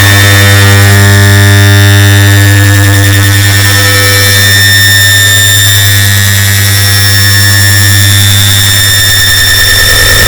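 An air conditioner's start-up sound layered on itself many times over into one very loud, unbroken drone: a heavy low hum with many steady tones stacked above it and a hiss on top.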